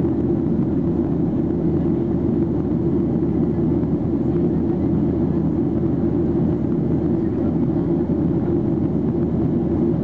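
Steady cabin noise inside a Boeing 737-800 airliner in flight: the low rumble of its CFM56-7B jet engines and the rush of air past the fuselage, even and unbroken.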